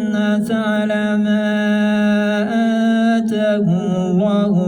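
A man chanting Quranic recitation (tajweed) in a melodic style, holding long drawn-out notes that step in pitch a few times.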